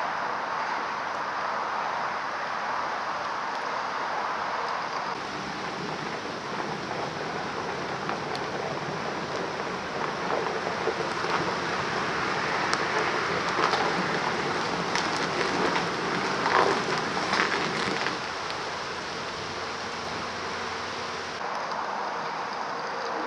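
1945 GMC DUKW amphibious truck's engine running as the truck is driven slowly, heard as a steady rushing noise that grows louder for several seconds in the middle, with a few knocks.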